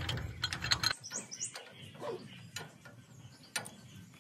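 Metal tools and parts clinking at a tractor trolley's axle and leaf spring mount: a quick run of sharp clicks and knocks in the first second, then a few single clicks. A couple of short high bird chirps come about a second in.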